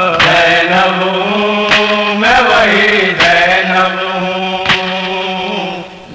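Noha being chanted: long held, slowly wavering vocal notes over a steady low drone, marked by a sharp beat about every second and a half, with a short dip in level near the end.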